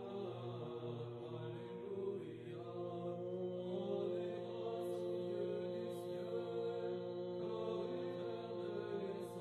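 Vocal chant on long held notes over a steady low drone, the pitch shifting only every few seconds.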